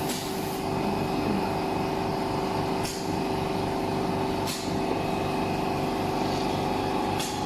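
Multi-axis laser welding machine running a weld: a steady machine hum with several held tones, and four brief hissing bursts spaced a second or two apart.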